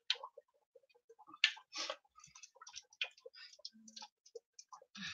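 Cod frying in hot oil just after being dropped in: faint, scattered crackles and pops.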